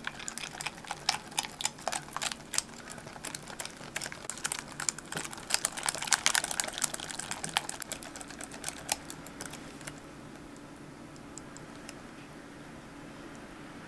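A kitchen utensil clicking rapidly against a mixing bowl while mixing, many light clicks that thin out after about eight seconds and stop, leaving a faint steady hum.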